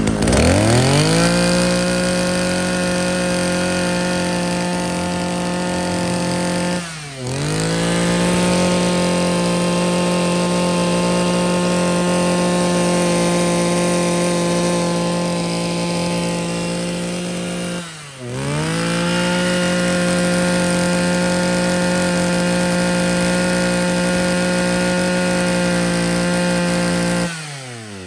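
Mitsubishi TL231 brush cutter's 23cc two-stroke engine held at high revs, steady and loud; twice the throttle is let off so the revs dip and climb straight back, and near the end it drops to idle. It revs fast and sounds very solid, the sign of a healthy engine.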